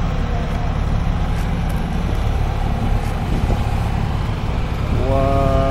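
Steady low rumble of vehicles in a truck show lot. Near the end a horn sounds one steady note for about a second.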